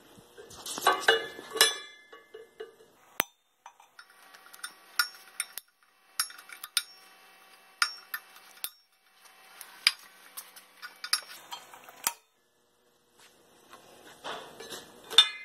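Side cutters clicking and clinking against a steel wheel rim while the old rubber valve stem is cut out of the valve hole in small pieces. The clicks come irregularly, and several leave a short metallic ring.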